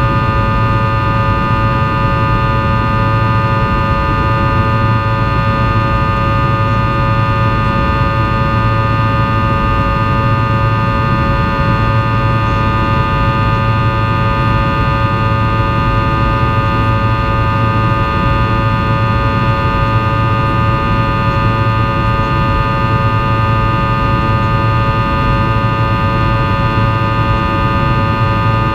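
Fokker 100's rear-mounted Rolls-Royce Tay turbofan engines heard inside the cabin from a window seat beside the engine during the climb. It is a steady, loud drone: a deep hum under a cluster of steady whining fan tones, with an even rush of noise.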